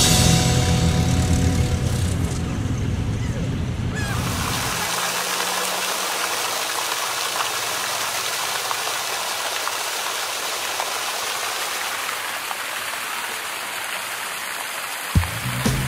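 Background music fading out in the first few seconds, giving way to a steady rush of splashing, running water from fountain jets and a flowing channel. The music comes back in near the end.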